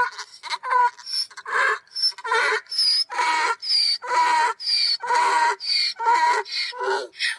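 Donkey braying: a long run of short, harsh hee-haw calls, about two a second, some carrying a high squeal on top.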